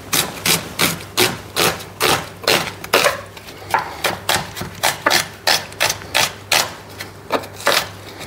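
Knife chopping an onion on a cutting board: a steady run of sharp knocks, about two or three strokes a second.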